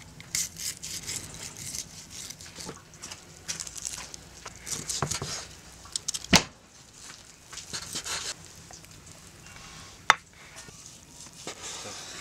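Knife carving grilled mutton ribs on a wooden cutting board: irregular wet cutting and scraping sounds, with a sharp knock a little after six seconds in and another about ten seconds in.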